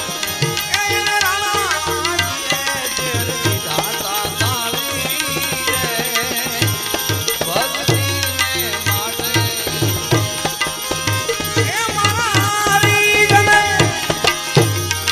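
Live devotional song: a man singing a wavering, ornamented melody over harmonium and hand-drum accompaniment, the drum keeping a steady beat.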